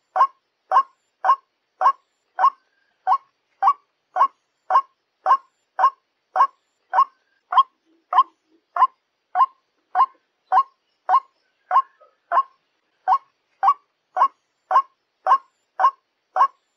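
White-breasted waterhen (ruak-ruak) call used as a trapping lure: one short, clipped note repeated at an even pace, a little under two a second.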